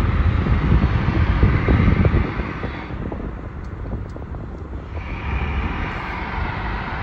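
A loud, deep rumbling noise of unknown origin, strongest at first, dying down after about two seconds, then swelling again about five seconds in.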